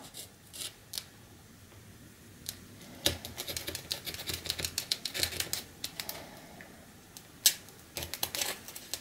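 Hobby knife blade slicing into a beaded foam wing, a crackle of small rapid clicks as it cuts. A few separate clicks at first, then a dense run from about three seconds in to six and a few more near the end.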